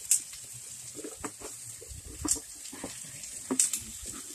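Meat sizzling on an open gas grill, with a faint hiss and irregular pops and crackles of spitting fat.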